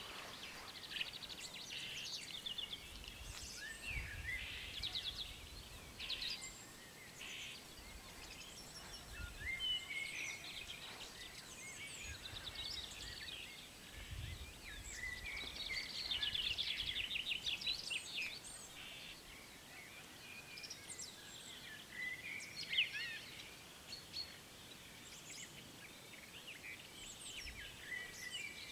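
Several songbirds singing and chirping around the crossing, with a few brief low rumbles in between.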